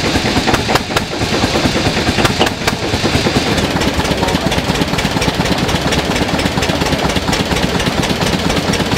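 Vintage stationary engines running with a steady, fast chugging. In the first three seconds or so, sharp irregular bangs sound over it.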